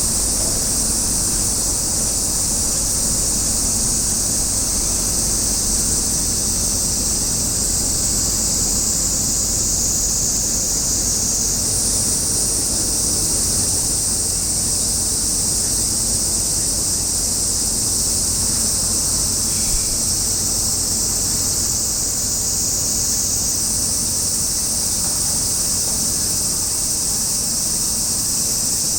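Steady outdoor ambience: an even high-pitched hiss that shifts in level twice, over a low, steady rumble.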